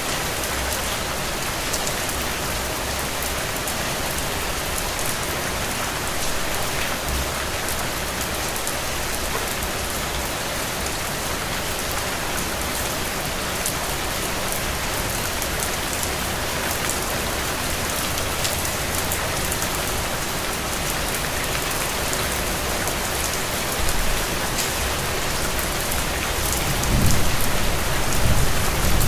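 Steady rain falling, an even hiss with scattered individual drops ticking through it. A low rumble swells near the end, and the rain grows a little louder.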